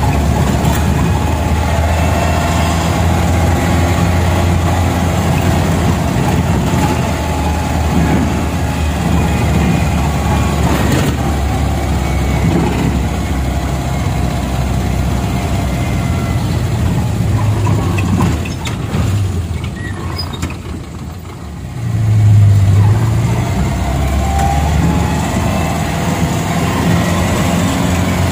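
Angkot minibus engine and road noise heard from inside the cabin, running steadily. About two-thirds of the way through it drops off for a few seconds, then swells louder again.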